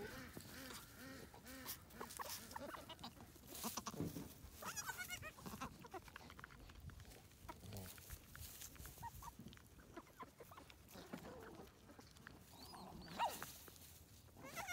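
Newborn goat kids giving a few short, wavering bleats, with rustling and scuffing as they move about on dry straw.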